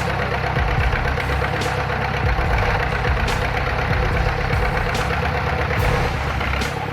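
Heavy machine's engine running steadily at a low idle-like pace.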